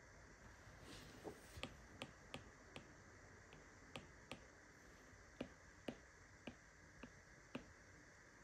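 Apple Pencil tip tapping on an iPad's glass screen while painting: about a dozen light, irregularly spaced clicks, with a brief soft scratch of a stroke about a second in.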